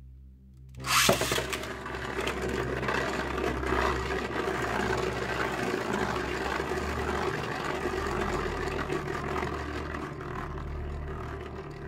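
Beyblade Burst top (Grand Valkyrie Zenith Hold') launched into a plastic stadium with a sharp hit about a second in. It then spins on the stadium floor with a steady whirring, scraping noise, easing slightly toward the end.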